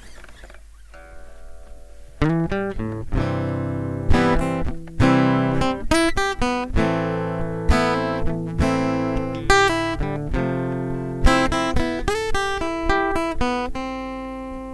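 Acoustic guitars playing an instrumental introduction: soft for the first two seconds, then strummed chords in a steady rhythm, ending on a chord left to ring out.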